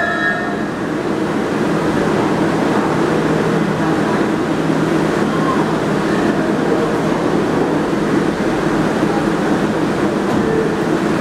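R142A subway train standing at the platform with its doors open, giving off a steady hum and rush of noise.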